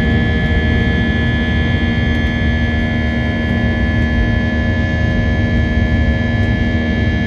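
Jet airliner cabin noise: a steady low rumble of engines and airflow with a few constant whining tones over it.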